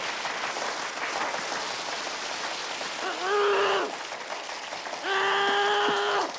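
A crowd of students clapping steadily, with two high-pitched, drawn-out fighting cries from a man: a shorter rising one about three seconds in and a longer, level, held one near the end.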